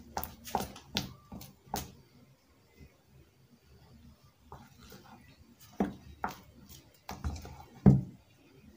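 Thick puff puff batter being beaten by hand and spoon in a glass bowl: a string of short slaps and knocks against the bowl, several close together at first, then a lull, then more from about six seconds in, the loudest near the end.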